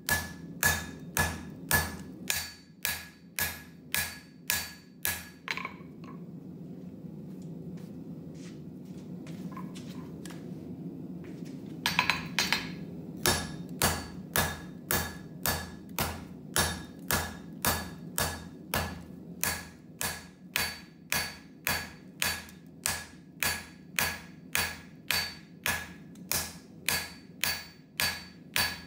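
Hand hammer striking red-hot wootz steel on an anvil while forging a chef knife blank, about two blows a second, each with a bright ring from the anvil. About six seconds in the hammering stops for roughly six seconds, leaving a steady low rumble, then resumes at the same pace.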